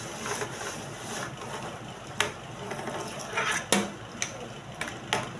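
Plastic snake cube puzzle being handled on a table: about five sharp, irregular clicks and clacks as its segments are moved and knock together, with a brief scraping rustle between them.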